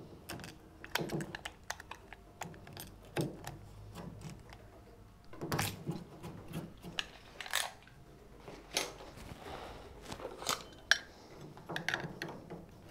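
Light scraping and clicking of a utility knife blade paring wood out of a routed hinge recess in a timber door edge, in short irregular strokes. Near the end a sharp click and metal clinks as a steel hinge leaf is set into the recess.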